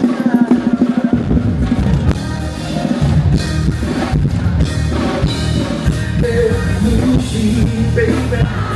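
Live band music with drum kit and bass carrying a steady beat, a sung note from the vocalist near the end.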